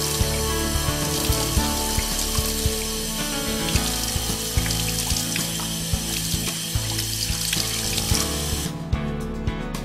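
Thin stream of tap water pouring steadily into a sink, a continuous splashing hiss that cuts off suddenly near the end. Background music runs underneath.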